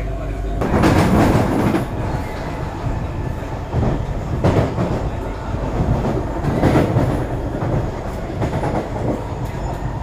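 Singapore MRT train running, heard from inside the carriage: a steady rumble of wheels on rails with louder surges of clatter, the first a little under a second in and others about halfway through and near seven seconds.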